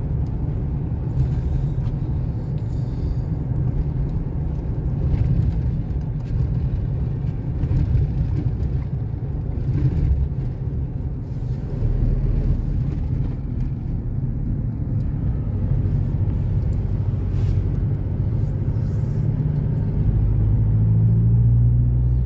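Steady engine and road rumble of a moving car heard from inside the cabin, with a deeper drone swelling near the end.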